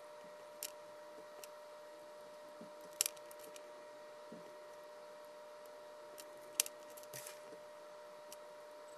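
A few sharp, light clicks and taps of small hard parts being handled, spaced seconds apart over a faint steady electrical hum.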